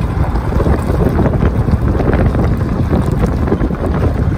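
Wind buffeting the microphone of a phone held out of a moving Jeep's window: a loud, uneven rumble.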